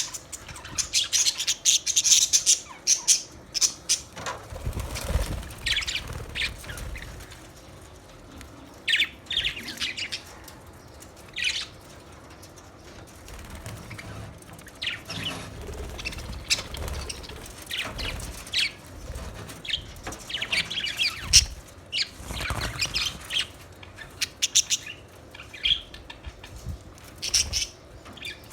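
A flock of budgerigars chirping and chattering in quick bursts of short, high calls, with a few low thuds among them.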